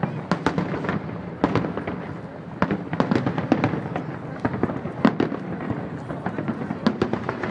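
Aerial firework shells bursting in a rapid, irregular barrage, many sharp reports a second with echoes trailing after them: a fireworks grand finale.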